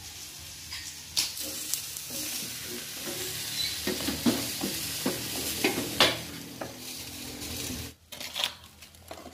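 Whole fish sizzling on a hot griddle, with clicks and scrapes of metal tongs turning it. The sizzle cuts off suddenly about eight seconds in, followed by a few knocks as the fish is moved onto a ceramic plate.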